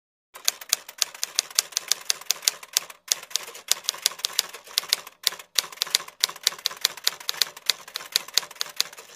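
Typewriter typing sound effect: a fast, uneven run of sharp key clicks, several a second, starting a moment in and broken by a few short pauses.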